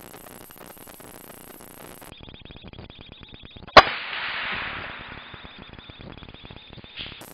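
A single sharp rifle shot about four seconds in, followed by a second or so of rustling hiss that fades away. A small knock comes near the end.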